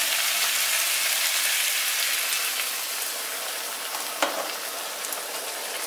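Frying pan of ground beef, kidney beans, corn and tomato sizzling steadily on the hob, a little louder at first and easing off. A single light clink about four seconds in.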